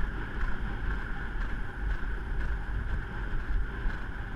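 Wind buffeting a microphone worn by a horse rider on the move: a steady low rumble with a hiss over it.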